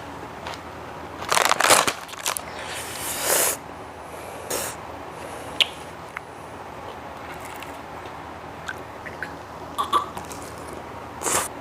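Close-miked eating sounds: chewing and slurping in short noisy bursts, with scattered light clicks of utensils or dishes.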